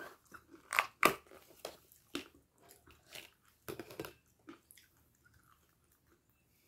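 A person chewing a mouthful of crunchy food, a run of sharp crunches loudest about a second in that thin out and stop after about four and a half seconds.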